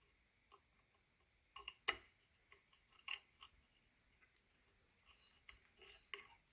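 Faint, irregular clicks and light taps of small metal parts and hand tools being handled during bicycle brake assembly, the sharpest pair a little under two seconds in and a loose cluster near the end.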